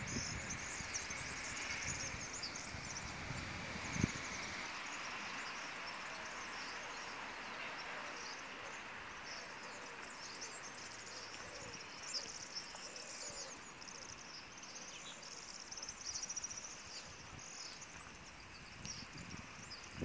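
Small birds twittering in the trees, many short high notes overlapping throughout, over a faint steady background noise. A single soft knock about four seconds in.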